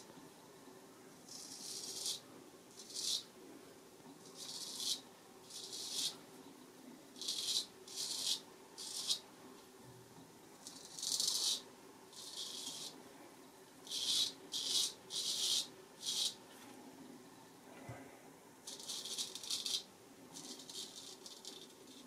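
Straight razor scraping stubble through shaving lather on the neck: a series of about fifteen short scraping strokes, each under a second, with brief pauses between them.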